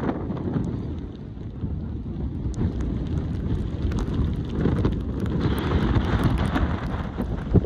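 Strong, gusty wind buffeting the microphone, a rumbling rush that swells and eases.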